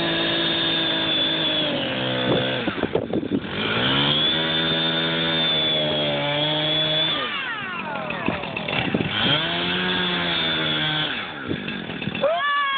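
Two-stroke chainsaw running at high revs while its bar cuts down into lake ice. The engine speed dips and climbs back about three times, with a quick rev-up near the end.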